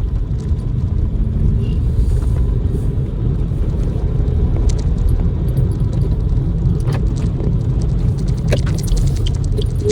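Steady low road rumble of a car driving, heard from inside the cabin, with a few faint clicks.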